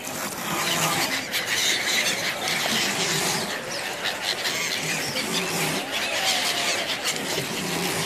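A flock of gulls calling: many short, high squealing cries overlapping continuously.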